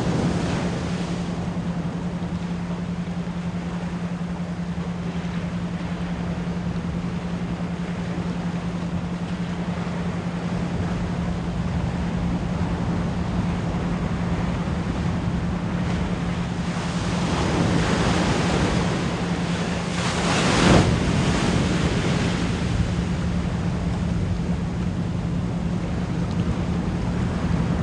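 Ocean waves washing in under a steady 174 Hz pure tone. A wave builds and breaks loudly about twenty seconds in.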